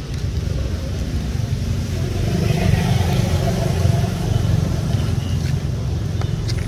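A motor vehicle's engine running close by, a low rumble that grows louder about two seconds in and stays up.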